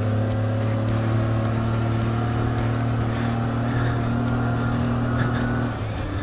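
Kawasaki Mule Pro-FX side-by-side's 820cc three-cylinder engine running at a steady pace while driving a trail, a steady low hum that dips slightly and changes tone near the end.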